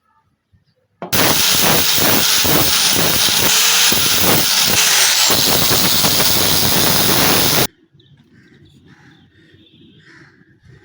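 A loud steady hiss, like a jet of spray or air, starts about a second in and cuts off abruptly about six and a half seconds later.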